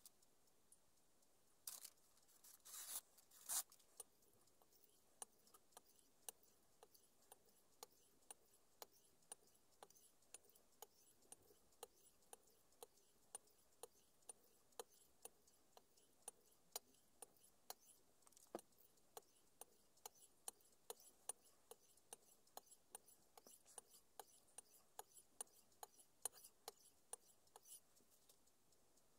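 Very quiet workbench sounds: faint, evenly spaced clicks about two a second, with a few louder scraping rubs about two to four seconds in.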